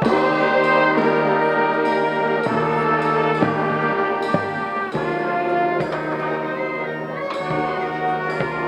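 High school marching band's brass section playing held chords, the notes changing about every second over a steady low bass line.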